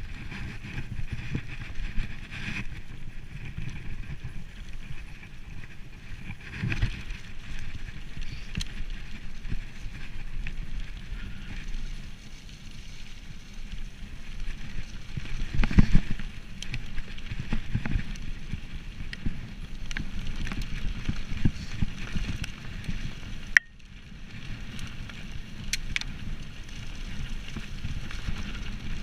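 Mountain bike ridden fast over a rough dirt forest trail: continuous tyre rumble with the bike rattling and knocking over bumps, the hardest jolt about sixteen seconds in.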